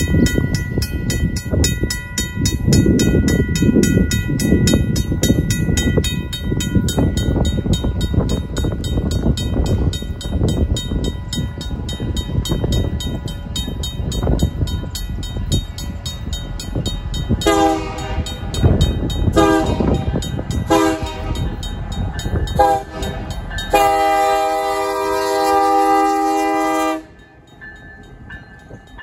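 RACO mechanical crossing bell ringing in fast, even strokes over a low rumble. From about 17 seconds in, the leading Union Pacific diesel locomotive's air horn sounds four shorter blasts, then one long blast of about three seconds that cuts off near the end.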